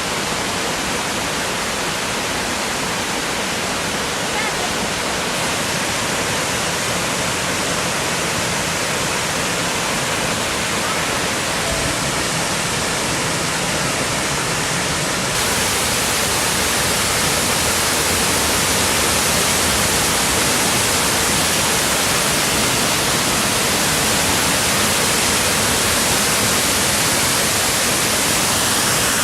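Dip Falls in heavy flow after rain: a loud, steady rush of falling water. About halfway through it gets louder and hissier and stays so.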